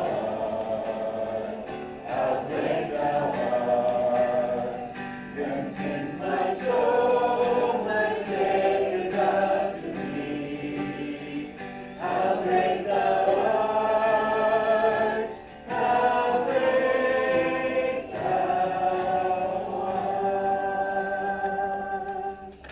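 A congregation singing a hymn together, in sustained phrases. The last long note stops just before the end.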